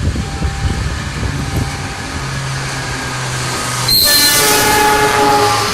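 Passing long-distance passenger train: a steady low locomotive hum, then about four seconds in a sudden loud rush of train noise as its horn sounds one held chord of several tones.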